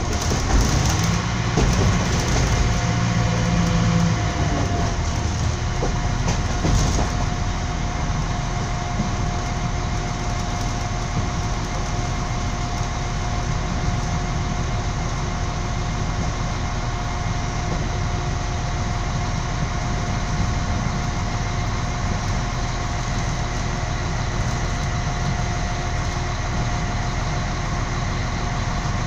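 Running noise of a train heard from inside the carriage: a continuous rumble with a faint steady hum. It is heavier and bumpier, with a few knocks, for the first several seconds, then settles into an even sound.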